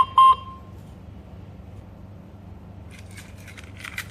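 Two short electronic beeps from the KERUI 5900G alarm control panel, a setting confirmation, over a steady low hum. About three seconds in comes a short cluster of plastic clicks and rattles.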